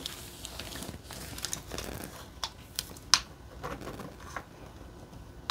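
Clear plastic film on a diamond painting canvas crinkling and rustling under hands, with scattered small clicks.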